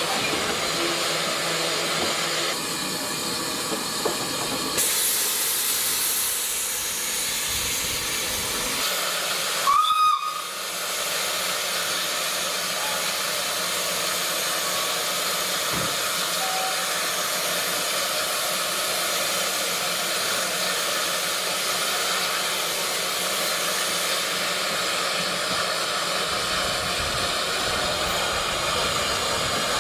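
Steam hissing steadily from the K1 Garratt steam locomotive as it stands, louder and higher-pitched for a few seconds about a sixth of the way in. About a third of the way in comes one short, loud blast on its steam whistle.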